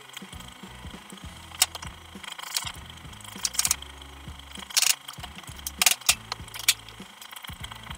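Hand tools and metal trailer parts clinking and knocking during trailer assembly work: about eight sharp, irregularly spaced strikes.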